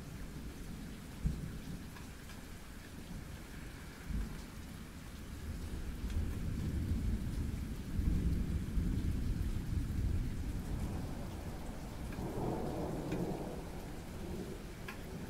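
Thunderstorm: steady rain with thunder rumbling low, building about six seconds in, at its loudest a couple of seconds later, then slowly fading. A few close raindrops tap sharply now and then.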